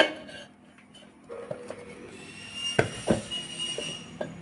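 Metal parts of a ceiling fan knocking and clinking as they are fitted back together: a sharp knock at the start, then a brief metallic ring and two more knocks about three seconds in.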